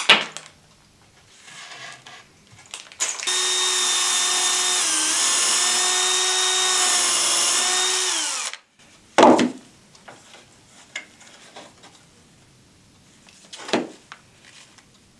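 Cordless drill pre-drilling a pilot hole in particleboard so the board does not split. It runs steadily for about five seconds, dips briefly under load, then winds down. Two short knocks follow.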